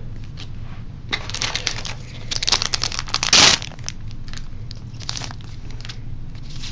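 A trading-card booster pack's foil wrapper crinkling and being torn open by hand, with the loudest rip about three and a half seconds in and lighter crinkles near the end.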